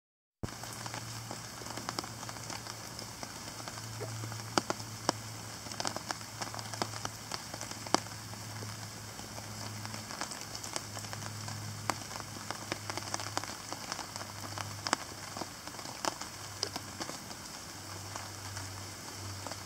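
Heavy rain falling on a tarp, a steady patter with many sharp single drop strikes.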